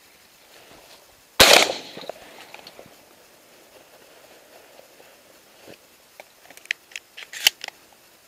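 A single shotgun shot about a second and a half in, its report fading over about half a second. Near the end comes a quick run of clicks and knocks, the loudest a sharp snap.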